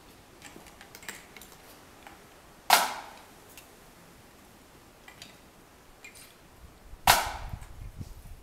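Two loud, sharp cracks about four and a half seconds apart, each dying away quickly, with a faint low rumble after the second.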